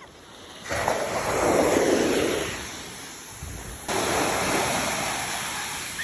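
Ocean surf breaking on a beach: one wave rushes in about a second in, swells and fades, and a second one breaks suddenly near four seconds and washes out.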